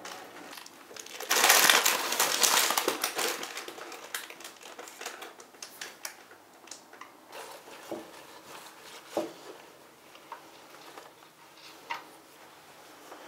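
Peony stems and blooms being handled: a loud crinkling, crackling rustle about a second in that fades away, then scattered light rustles and a few sharp knocks.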